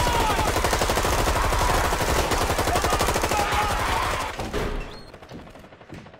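Sustained automatic fire from several soldiers' rifles, a dense, rapid volley of overlapping shots. It drops away sharply a little after four seconds in, leaving only faint scattered knocks.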